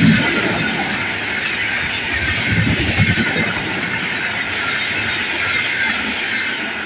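Red Indian Railways passenger coaches passing at speed: a steady rush of steel wheels on the rails, with heavy thumps as wheelsets cross the rail joints. It fades near the end as the tail of the train moves away.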